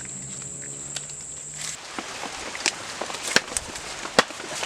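An insect's steady high-pitched buzz over a low hum, which cuts off suddenly about a second and a half in. Rain hiss then takes over, with sharp knocks every so often.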